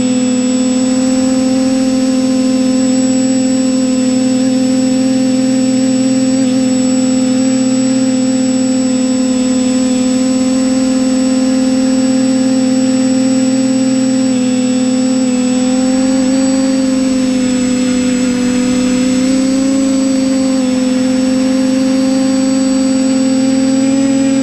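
TBS Discovery Pro quadcopter's electric motors and propellers buzzing steadily in a hover, heard from the camera mounted on the craft. The pitch wavers slightly in the middle as the throttle shifts.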